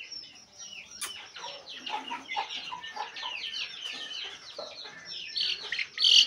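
Aseel chickens: chicks peeping continuously, many short high cheeps falling in pitch and overlapping, with some lower clucking from adult birds. A louder, sharp burst comes near the end.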